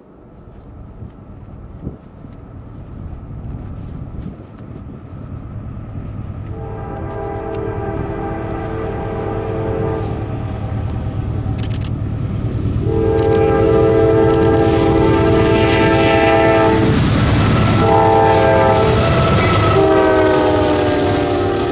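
Horns of approaching Norfolk Southern diesel freight locomotives sounding long, long, short, long, the crossing signal, over a rumble of engines and wheels that grows louder as the train nears. The last blast drops slightly in pitch as the lead unit reaches the listener.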